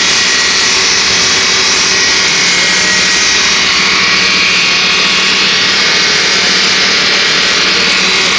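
Automatic bridge saw's diamond blade cutting through a stone slab under water spray: a loud, steady, high grinding hiss with a faint low hum underneath.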